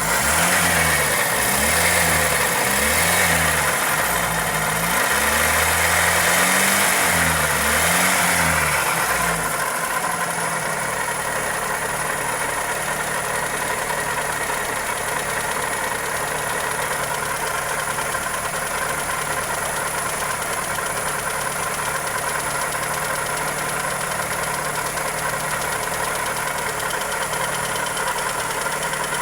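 Toyota 2E four-cylinder engine revved in a series of short throttle blips for about the first ten seconds, then settling to a steady idle. A ticking knock runs through it, which the owner puts down to the valvetrain or a connecting rod.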